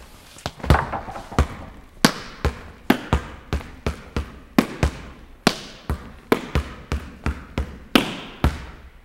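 Basketball dribbled on a hardwood gym floor, about three bounces a second, slightly uneven in rhythm, each bounce echoing in the empty hall.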